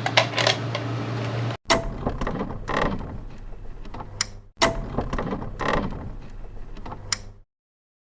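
Handling noises: scattered clicks and creaks of small parts being handled and fitted, over a steady low hum. They come in three stretches that cut off abruptly, with silence near the end.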